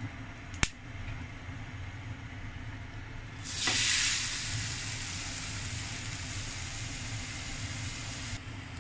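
A single sharp click less than a second in. Then, about three and a half seconds in, blanched thin whole-egg noodles land in hot oil in a frying pan and a loud sizzle starts, strongest at first and settling into a steady frying hiss that drops off sharply shortly before the end.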